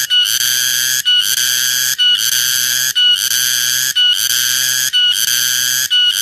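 Cicada singing: a loud, shrill buzzing song that repeats in phrases about once a second, each broken off by a short pause.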